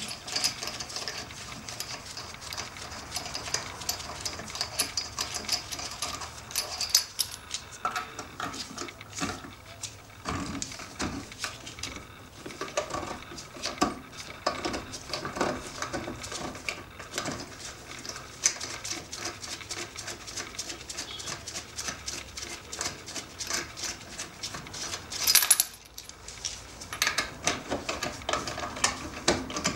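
Hand socket ratchet clicking in quick runs as lug nuts are loosened and spun off a car's rear wheel, with light metallic clinks of the socket on the nuts. A single louder metal clank comes near the end.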